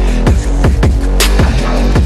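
Electronic drum and bass music with a fast, steady beat and deep bass.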